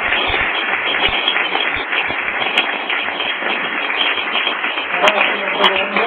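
Audience applauding steadily, a dense patter of many hands clapping, with a few voices rising over it about five seconds in.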